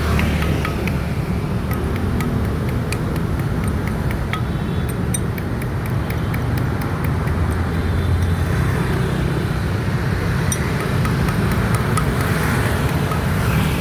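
Road traffic noise with a steady low engine rumble from motor vehicles running close by.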